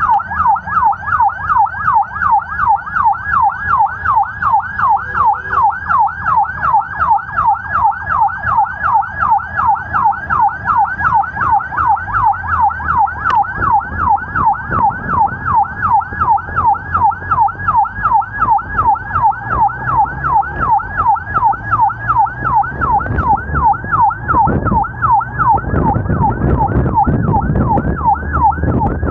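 Emergency vehicle siren in its fast yelp, its pitch rising and falling about three to four times a second without a break, over low road and engine rumble that grows louder near the end.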